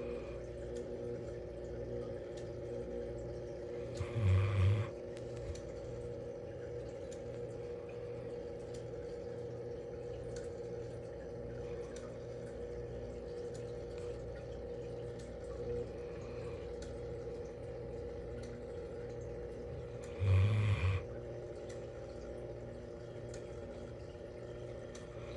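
Bloodhound snoring in her sleep: two loud, low snores about sixteen seconds apart, over a steady background hum.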